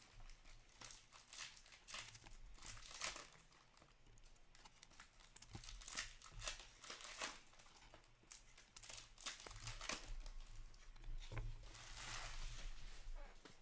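Faint, irregular crinkling and rustling of trading-card pack wrappers and cards being handled and flipped through, with some tearing.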